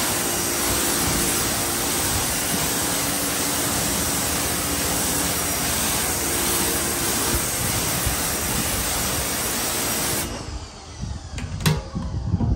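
Mrliance 2300 PSI electric pressure washer running, its wand spraying a jet of water onto concrete: a steady spray hiss over a motor hum. The hiss cuts off suddenly about ten seconds in, and a couple of knocks follow near the end.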